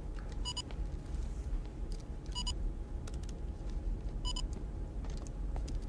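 Short electronic beep repeating about every two seconds, three times, over the steady low hum of a submarine control room, with a few faint clicks.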